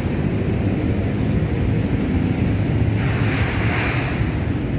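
Swollen Ciliwung river in flood, its fast brown current rushing as a steady low noise, with a higher hiss swelling about three seconds in.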